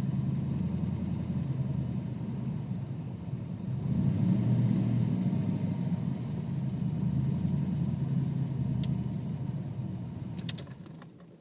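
Ford 302 (5.0 L) EFI V8 idling roughly, its level rising and falling unevenly: the owner's complaint of a rough idle. It fades near the end, with a few light clicks.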